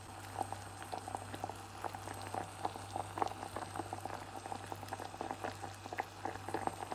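Thick, sugary tamarind and dried-plum chutney boiling in a saucepan, with a dense, irregular popping of bubbles as it is reduced until thick.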